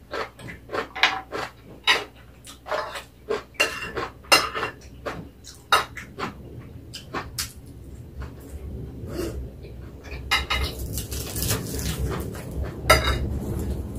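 Metal fork and chopsticks clicking and scraping against ceramic plates in a quick, irregular run of clinks. In the last few seconds this gives way to a dry rustling crackle as a sheet of roasted seaweed (gim) is handled.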